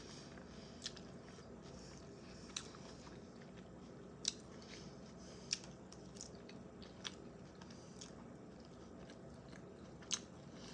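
Close-miked chewing of a chicken salad with raw vegetables such as onions, with a handful of sharp crunches or clicks at uneven intervals.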